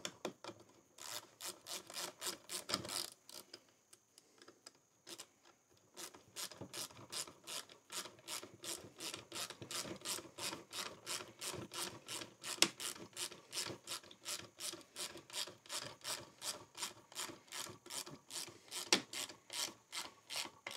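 A 1/4-inch drive ratchet with a 7/16 socket clicking as its pawl slips over the teeth on each back-swing, doing up a 1/4-inch bolt. A short burst of clicks, a pause of a few seconds, then a steady run of about four clicks a second.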